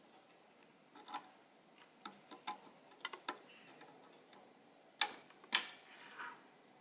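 Plastic power-cable plug clicking and tapping against the board's power jack as it is lined up, then two louder sharp clicks about five seconds in as it is pushed home.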